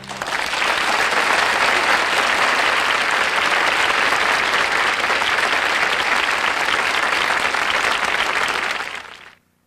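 Studio audience applauding steadily at the end of a song, dying away near the end.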